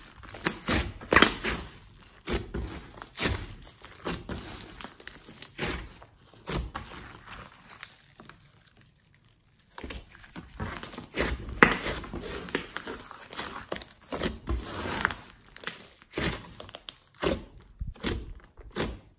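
Hands squeezing, folding and poking a large lump of glossy slime mixed with clay and glitter, making irregular pops and crackles as the slime stretches and air pockets burst, with a pause of about two seconds near the middle.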